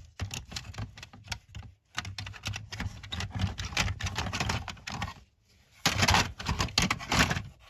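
Rapid plastic clicks and rattles of smoke detectors being handled, in two spells with a short pause about five seconds in.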